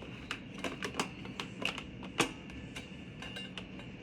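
Plastic parts of a flameless s'mores roaster knocked and clicked together while it is being assembled: a run of irregular sharp clicks and taps, the loudest about two seconds in.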